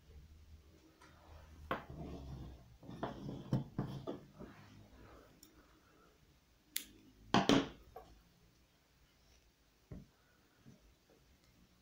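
Scattered rustles and light knocks of hands working yarn and a crochet hook, with a sharp click about seven seconds in followed by a louder knock.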